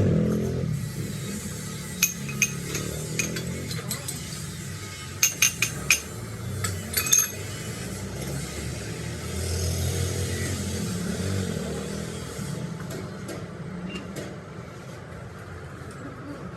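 Metal pieces clinking and knocking together in a workshop: two sharp taps about two seconds in, a quick run of three around five seconds, and a few more soon after, over a steady low machine hum that swells near the middle.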